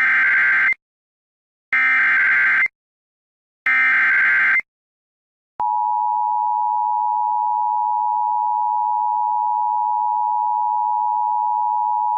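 Emergency Alert System SAME header: three bursts of rapid digital data tones, each about a second long, encoding a severe thunderstorm warning. After a second's pause comes a steady, unbroken attention tone, starting about five and a half seconds in, which signals that the spoken warning is about to follow.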